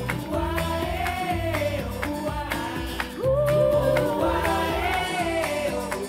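Pop song with a gliding sung vocal over a steady repeating bass line, played back through a pair of powered bookshelf speakers and picked up by a recorder in the room.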